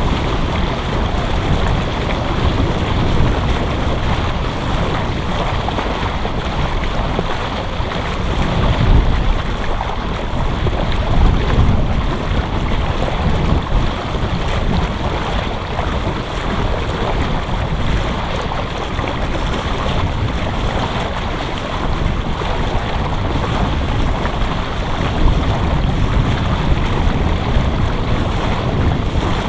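Wind buffeting the microphone over water rushing along the hull of a small sailboat under sail at about 6 knots, with no engine running. The wind rumble swells in a few louder gusts.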